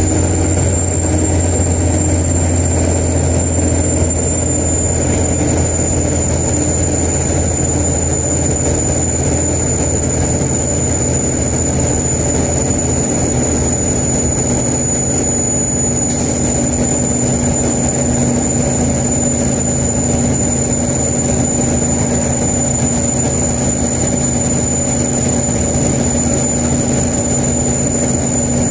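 Mechanical 575 hp single-turbo Caterpillar diesel in a 2001 Kenworth truck running steadily, its turbocharger whistling at a steady high pitch over the engine's low drone. The whistle finishes a short climb right at the start, then holds.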